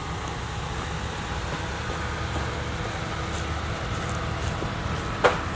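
Ram pickup truck engine idling with a steady low rumble. A brief sharp hit near the end is the loudest sound.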